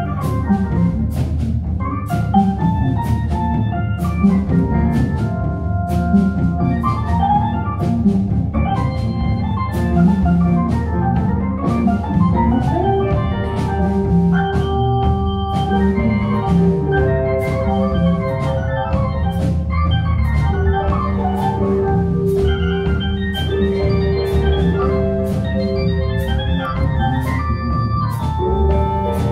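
Live rock band playing an instrumental passage: an organ lead with long held notes over a steady drum beat and bass.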